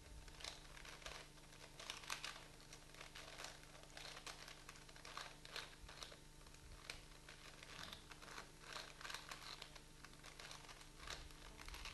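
4x4x4 Rubik's cube being turned by hand: its plastic layers click and rasp in quick, irregular turns.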